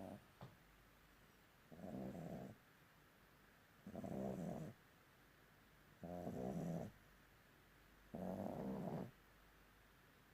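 A young bulldog snoring. Each snore lasts a little under a second, and they come at an even pace about every two seconds.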